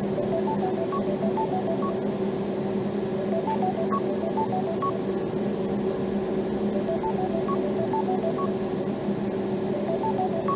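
Samsung Galaxy S23 Ultra ringtone playing: a short phrase of quick, beep-like notes that repeats about every three and a half seconds, over a steady low hum.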